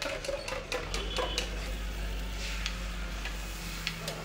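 Steel utensils clinking and tapping against steel cups and a flat iron griddle, a string of sharp clicks over a low steady hum.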